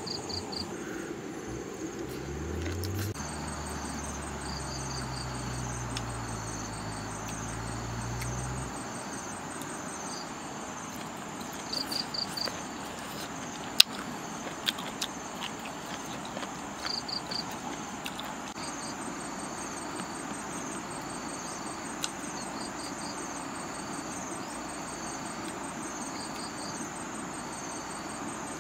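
Insects chirping outdoors in short groups of pulses repeated every second or two, over a steady high insect whine. A low motor drone rises in pitch about two seconds in and stops about a third of the way through. A few sharp clicks come in the middle.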